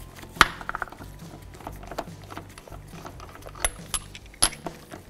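Lug nuts being spun off a car wheel's studs by hand, giving sharp metallic clicks and clinks as they come free and knock together in the hand. The loudest click is about half a second in, with a few more near the end.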